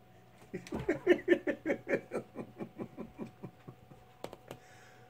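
A person laughing in a quick run of short bursts that fade away over about three seconds, then two sharp taps on the window glass.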